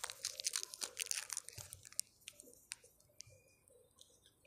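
Stylus or pen tip tapping and scratching on an interactive whiteboard screen while writing, a run of short dry clicks that thins out over the last second or two.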